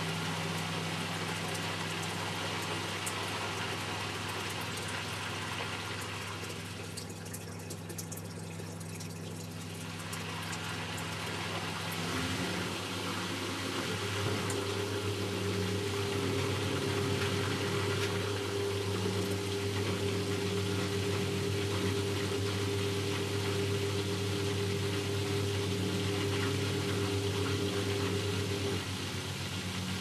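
Vintage Philips SL 202 front-loading washing machine turning its drum of wet laundry during rinsing: a steady motor hum with water and tumbling noise. The sound dips for a few seconds, then a higher steady hum comes in and runs until shortly before the end.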